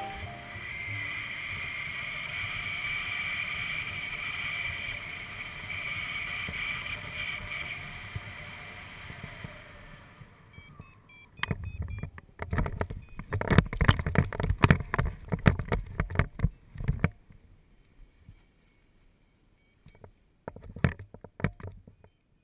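Wind rushing over a paraglider pilot's body-mounted camera microphone on the final descent, a steady noise that dies away as the glider lands. Then several seconds of loud, irregular knocks and scuffs of the camera and gear being jostled on the ground, with a few more knocks near the end.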